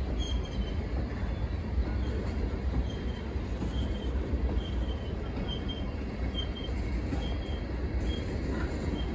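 Freight train of tank cars and covered hoppers rolling past, a steady low rumble of wheels on the rails. A faint, short high ring recurs about once a second through it.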